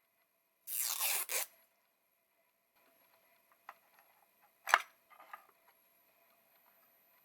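Small handcraft sounds at a worktable: a short tearing rustle lasting under a second, then scattered light taps and a single sharp click, with a brief rustle just after it.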